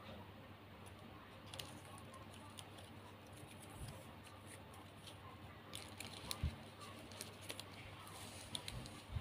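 Shiny gift ribbon crinkling and rustling faintly as it is folded, creased and pulled through by hand, with scattered small crackles and a few sharper taps, the loudest about six and a half seconds in and again near the end.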